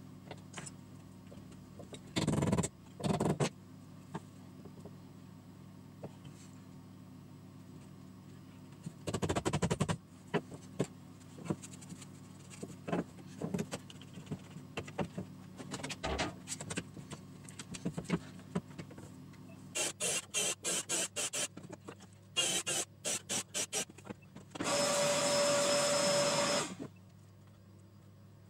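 Workbench assembly sounds as wooden frame pieces are handled and clamped: scattered knocks and clicks over a steady low hum, with two runs of rapid clicking a little past halfway. Near the end a cordless drill's motor runs steadily for about two seconds.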